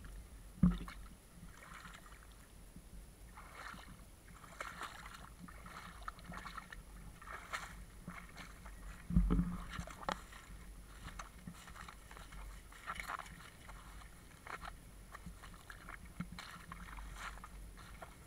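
Irregular rustling footsteps across wet seaweed, with two low thumps of the action camera being handled, one about a second in and one about halfway through.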